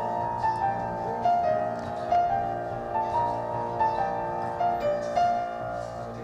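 Music: a melody of held notes stepping up and down over a steady low drone, with light high accents.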